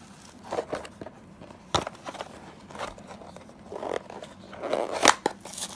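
Cardboard game box and its packing tape being handled and torn open: scattered rustles, scrapes and knocks, with a sharp knock a little under two seconds in and the loudest rip near the end.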